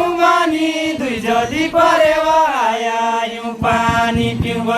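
Deuda folk singing of far-western Nepal: voices singing a slow, chant-like melody in long held notes that slide down between phrases.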